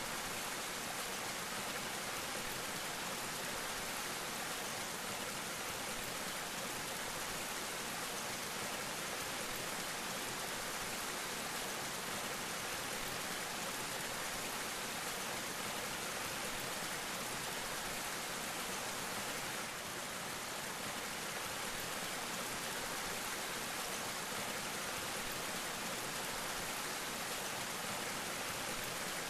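Waterfall spilling as a thin curtain of separate streams and drops, splashing steadily into a shallow pool at close range.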